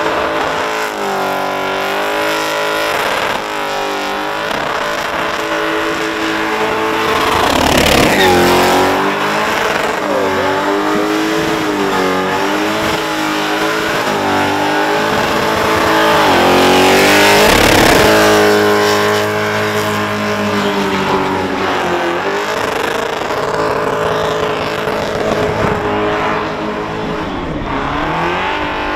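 Supercharged, methanol-fuelled Holden Commodore doing a burnout: the engine is held high in the revs and wavers up and down over the noise of the spinning tyres. It swells louder twice, about a quarter of the way in and again just past halfway.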